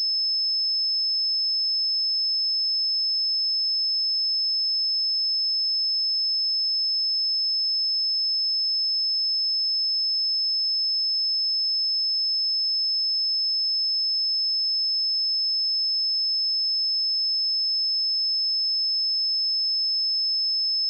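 A steady, pure 5226 Hz sine-wave test tone, one high-pitched unwavering pitch at constant loudness.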